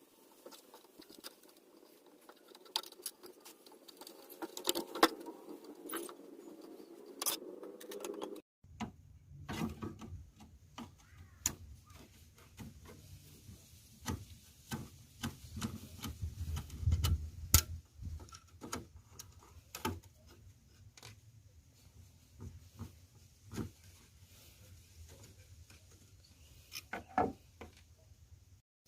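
Scattered small clicks, taps and light scrapes of tools and parts being handled at a workbench. About eight seconds in the sound cuts abruptly, and after that a low rumble sits under the clicks.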